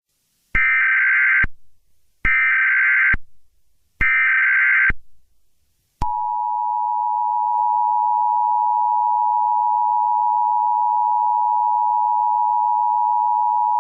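Emergency Alert System tones: three short buzzing bursts of SAME digital header data, each just under a second, then the steady two-tone EAS attention signal starting about six seconds in.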